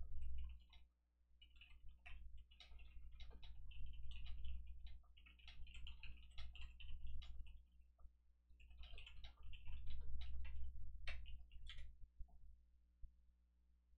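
Computer keyboard typing: runs of rapid key clicks with short pauses between them, over a steady low hum.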